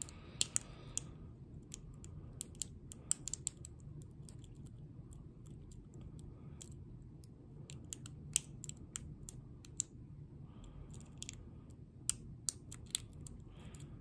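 Lock pick working the pin tumblers of a Lockwood 30mm padlock under tension: a scatter of small, sharp metallic clicks at irregular intervals as the pick lifts the pins one by one and they set.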